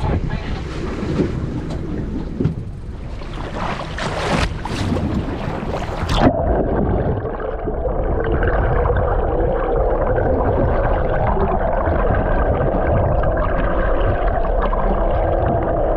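Wind and water noise on an open fishing boat's deck, which cuts off abruptly about six seconds in to the muffled rush and gurgle of water recorded by a camera just below the sea surface, with a steady hum running through it.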